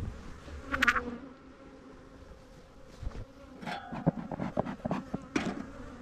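Honeybees buzzing around a beehive in a steady low hum, with a few short knocks and rustles from handling.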